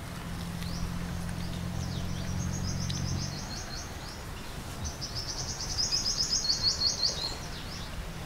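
A bird singing fast trills of short, high repeated notes, a short run about two seconds in and a longer run about five seconds in. Under it, a low steady hum for the first three seconds or so, which stops.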